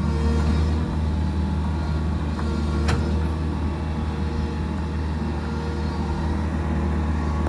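Bobcat Toolcat 5600 utility machine's diesel engine running steadily under work, with a single sharp knock about three seconds in.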